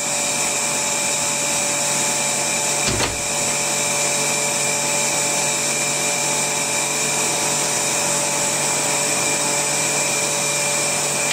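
Vacuum pump running steadily with a constant whine, drawing vacuum on a bagged fibreglass layup for resin infusion. A single brief knock about three seconds in.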